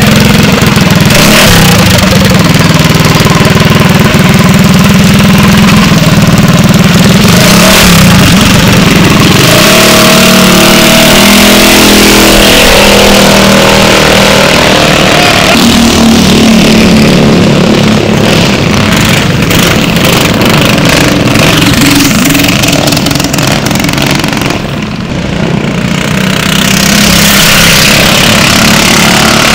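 Loud small-engine minibike running hard, its pitch rising and falling as it revs, easing off briefly near the end and then picking back up.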